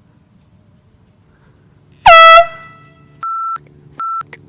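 A handheld air horn gives one short, very loud blast about two seconds in, its pitch dipping slightly as it starts. Two shorter, quieter electronic beeps follow a second later.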